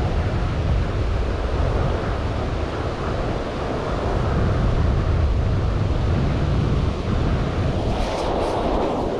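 Rushing water of a river rapid, a steady noise, with wind buffeting the microphone. About eight seconds in comes a brief scratchy rustle of a sleeve brushing the microphone.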